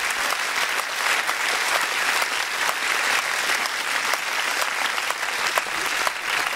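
A large audience applauding, many hands clapping densely together.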